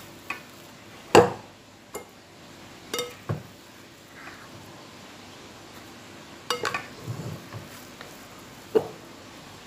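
A spatula knocking and scraping against a cooking pot and a round aluminium pan while sticky pounded glutinous rice is scooped across. The clinks and knocks come at uneven intervals, the loudest about a second in and a quick cluster about two-thirds of the way through.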